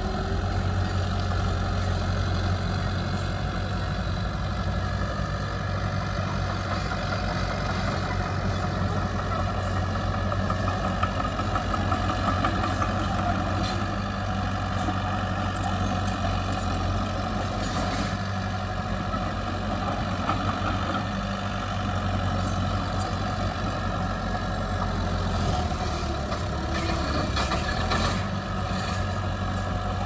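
Heavy diesel engine of earth-moving equipment running steadily at a low, even pitch, with scattered light clicks and clanks from about ten seconds in, more of them near the end.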